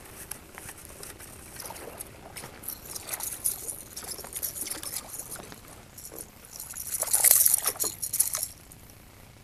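A hooked largemouth bass thrashing and splashing at the surface beside a kayak, with the loudest splashing about seven seconds in. Short ticks and rattles come through between the splashes.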